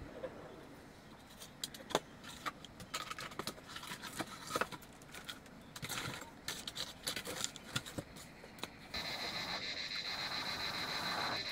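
Split firewood being handled and fed into a stone-ringed cooking fire: scattered clicks, knocks and scrapes of wood against wood and stone. About nine seconds in, a steady high hiss with a thin high tone in it takes over.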